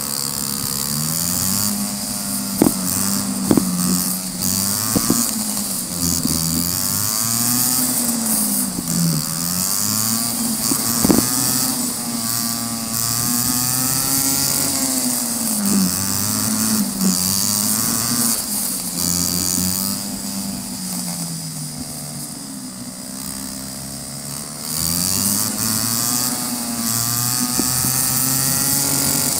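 Go-kart engine running as the kart laps, its pitch climbing on the straights and dropping into each corner, over and over, with a steady rush of wind on the microphone and a few sharp clicks in the first half.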